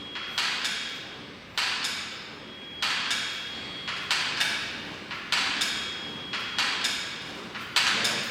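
Elliptical trainer knocking in rhythm with each stride: a sudden knock that fades away, repeating about once every 1.2 seconds.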